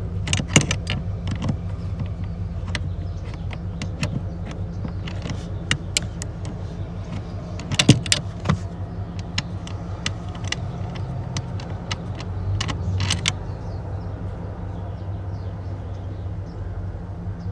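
Scattered metallic clicks and clinks of hand tools and a socket being handled on seat-mounting bolts, irregular, with the sharpest knocks about half a second in and near the middle, over a steady low hum.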